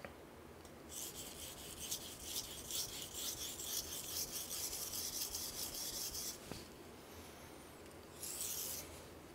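Steel kitchen knife edge being sharpened on a wet Tsushima nagura Japanese natural whetstone: a soft, high scraping hiss of many short strokes lasting about five seconds, then one brief stroke near the end.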